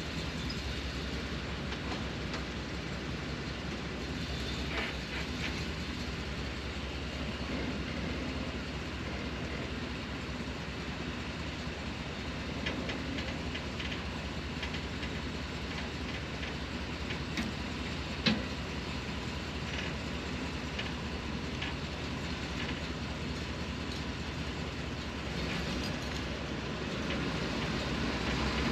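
A John Deere 1025R compact tractor's three-cylinder diesel engine running steadily, with occasional light knocks and clanks from the work.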